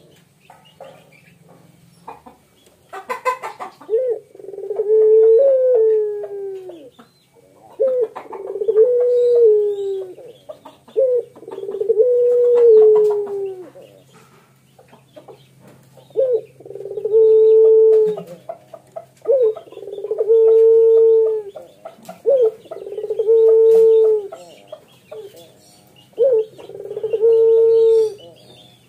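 Male puter pelung (domestic Barbary dove) giving its bow-coo, a short clipped note followed by a long rolling coo, repeated about eight times roughly every three seconds. The first few coos sag in pitch at the end; the later ones are held level.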